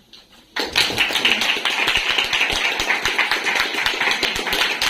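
Audience applauding, starting abruptly about half a second in and keeping a steady, dense clatter of claps.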